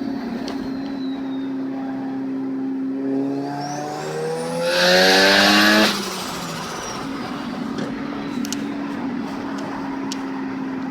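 Mazda RX-7 FD's engine with a Holset HX40 turbo, idling and then revved once for about two seconds, the turbo whistle rising in pitch as it spools up. About six seconds in the throttle snaps shut, and the whistle winds down over the next couple of seconds as the engine drops back to idle.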